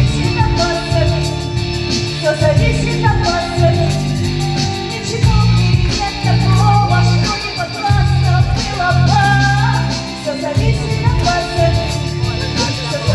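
A woman singing a song into a microphone, amplified over PA speakers, with instrumental accompaniment.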